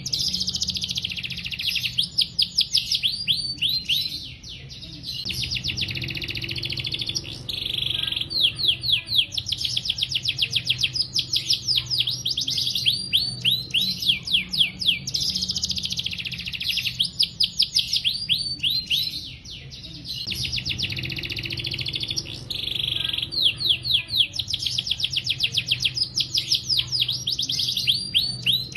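Domestic canary singing non-stop, long rapid trills of quick high downward-sweeping notes that run into one another in long phrases, with a short break about four seconds in and again near twenty seconds. The same phrase sequence comes round again about every fifteen seconds, over a steady low hum.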